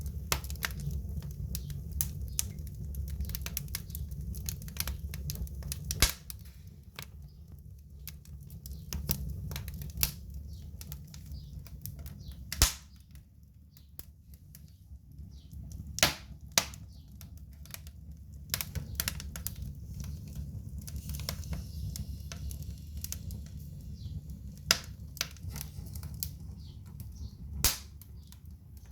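Fire burning in a fireplace stove: a steady low rumble of flames with scattered crackles and sharp pops, the loudest pops coming about six, twelve, sixteen and twenty-eight seconds in.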